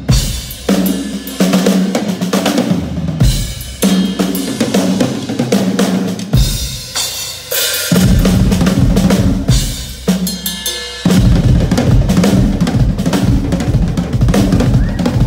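Rock drum kit played hard: bass drum, snare and tom hits with cymbal crashes, broken by a few short pauses.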